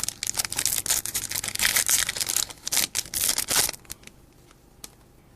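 Foil wrapper of a Pokémon Diamond & Pearl booster pack crinkling and tearing as it is opened, stopping about four seconds in.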